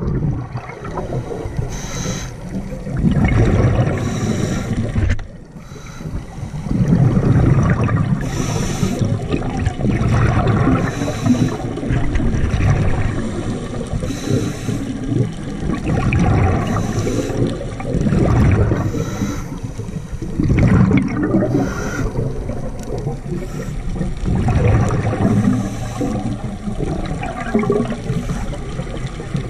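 Scuba diver breathing through a regulator underwater: a short hiss on each inhale, then a long bubbling rumble of exhaled air, repeating every three to four seconds.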